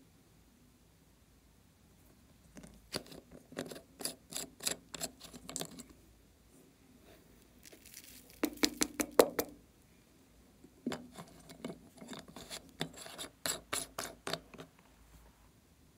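Hard plastic container being shaken and handled, giving a run of sharp clicks and rattles. A denser, louder clatter comes about eight to nine seconds in, then more clicks.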